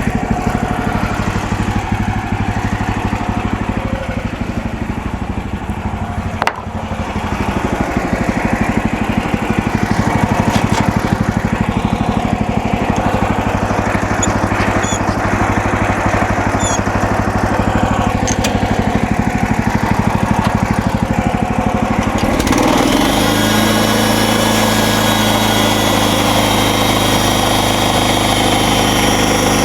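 MechMaxx SM32 portable bandsaw sawmill running steadily under its gas engine. The blade runs smoothly after its final adjustments and repairs. About 22 seconds in the sound changes, and a higher steady whine comes in.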